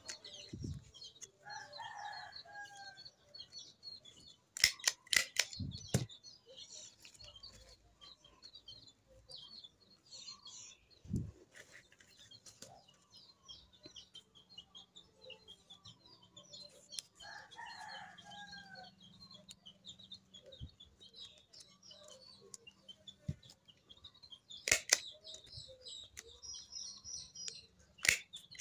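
A handheld stapler snapping shut a few times as it fastens folded banana leaves, in pairs a little after the start and near the end. Chickens cluck twice and small birds chirp in the background.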